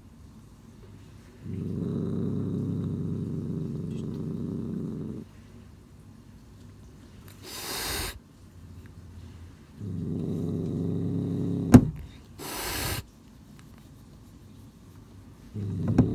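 Domestic cat growling in long low rumbles, twice, each followed by a short hiss, the sound of an annoyed, defensive cat. There is a sharp click just before the second hiss, and a third growl begins near the end.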